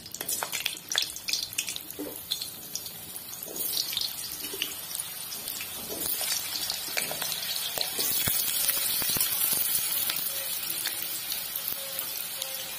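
Potato pieces dropped one by one into hot mustard oil, spitting with sharp crackles as each goes in, then the oil sizzling steadily as they fry; the sizzle swells past the middle.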